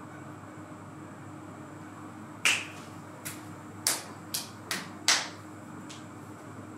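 Fingers snapping: about six sharp snaps spread irregularly over roughly three seconds, over a faint steady room hum.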